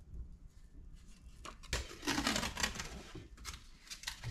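Crinkling, scratchy rustle of a vinyl decal's backing and painter's tape being peeled and handled, loudest in the middle, with a few light clicks and ticks.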